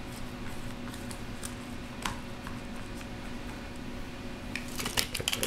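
Small handling sounds of assembling food in a small pan: a few faint taps over a steady low hum, then a quick run of clicks and light clatter near the end.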